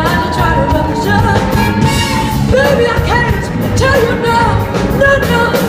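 Live band playing loudly, with a voice singing over a steady rhythm section.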